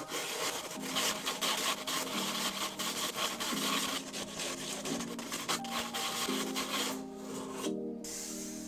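A gritty, hissing rustle of fine grit pouring out of a hollow aluminium channel, which dies away about a second before the end. Soft background music plays underneath.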